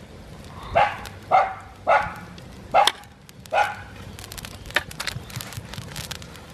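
A dog barks five times over about three seconds. After that comes light crackling and popping from the wood fire under the boiling pot.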